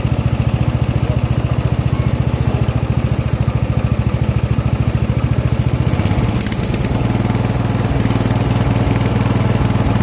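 Riding mower's small engine running with an even pulsing beat; about six seconds in its note changes and it settles into a steadier sound.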